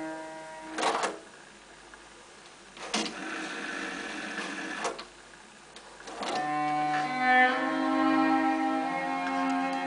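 Nakamichi 580 cassette deck playing bowed-string music from tape, worked by its transport keys: a click about a second in and the music stops, another click about three seconds in starts two seconds of noise as the tape rewinds, a click near five seconds ends it, and the music resumes about six seconds in.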